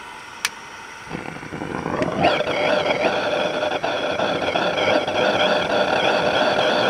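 A lighter clicks once, then the gas burner in the boiler flue of a gauge 1 Accucraft Tornado live-steam locomotive catches and builds up, settling about two seconds in into a steady rushing burn with a wavering whistle over it.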